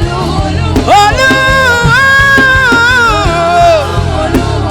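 Live Yoruba gospel worship song: a solo voice holds one long note for about two seconds over band accompaniment with a steady bass and drum hits.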